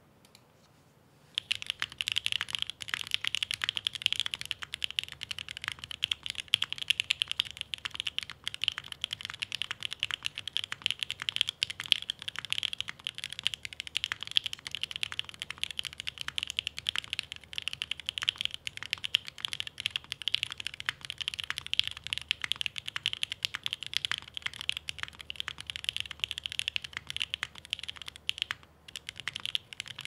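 Typing on a SingaKBD Unikorn R2.2 custom 60% mechanical keyboard with lubed PrimeKB Alpaca linear switches on 70 g springs, a carbon fibre plate and GMK keycaps. A dense, steady stream of keystrokes starts about a second and a half in, with one brief pause near the end.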